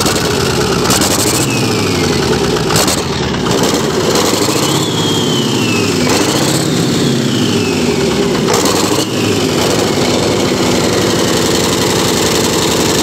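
International DVT573 V8 diesel engine running open on a stand, revved up and dropped back several times by hand on the throttle linkage, its pitch rising and falling with each blip.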